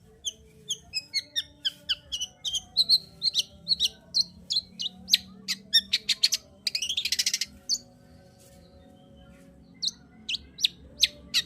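Long-tailed shrike singing: a quick series of short, sharp, high chirping notes, about two or three a second, broken by a harsh buzzing rattle about seven seconds in, then a short pause and a few more sharp notes near the end.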